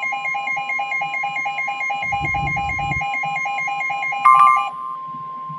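NOAA Weather Radio's steady 1050 Hz warning alarm tone, the signal that a warning broadcast follows, with a rapid pulsing electronic alarm beep on top. A short louder beep sounds near the end, and then the pulsing stops, leaving the steady tone alone.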